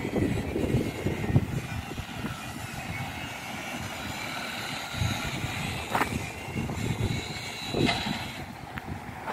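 Wind buffeting the microphone in irregular low gusts, with a faint steady high whine behind it and two short knocks in the second half.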